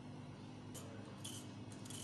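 Vegetable peeler scraping strips of skin off a raw carrot in a few short, quick strokes, starting just under a second in. A low steady hum runs underneath.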